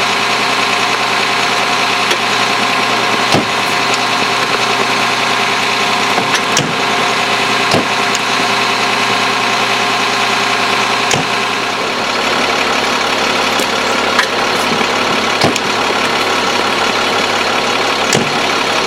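Parked ambulance's engine idling steadily, with a few sharp clicks and knocks scattered through it.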